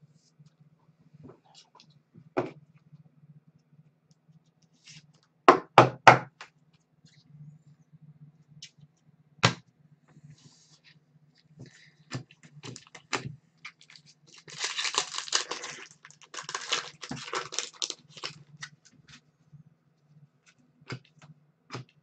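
Trading cards being handled on a tabletop: a few sharp taps and clacks, three in quick succession about six seconds in, then a couple of seconds of rustling as cards are shuffled and slid against one another, over a faint steady low hum.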